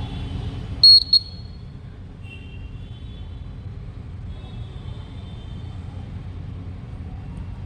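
Buzzer of an LM358 thermistor fire alarm circuit giving two short, loud high-pitched beeps about a second in, over steady low background noise.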